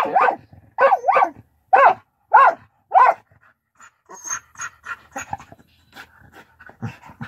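A dog vocalising in play: a string of about seven loud, short yowling barks in the first three seconds, each rising and then falling in pitch, followed by quieter panting.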